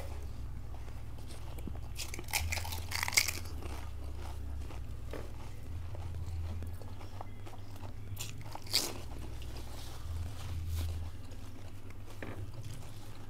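Crisp panipuri shells being bitten, crunched and chewed, with a few sharp crunches, the loudest about three seconds in and others near nine and twelve seconds. A steady low hum runs underneath.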